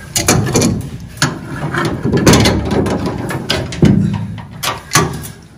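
Tongue-and-groove pliers and parking brake cables clattering against the steel floor and handbrake lever mount as the cables are pulled up: a run of irregular metal clicks and knocks with rattling between them. The loudest knocks come just past the middle and about four seconds in.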